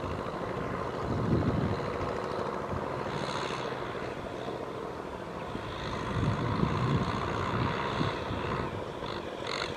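Kubota M6040SU tractor's four-cylinder diesel engine running steadily as it works a flooded rice paddy with a rear rotary tiller.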